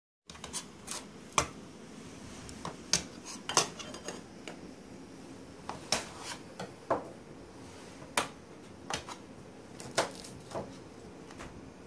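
Knife and utensils clinking against camping pots and bowls while meat is cut up for soup: a dozen or so irregular sharp clinks, some ringing briefly.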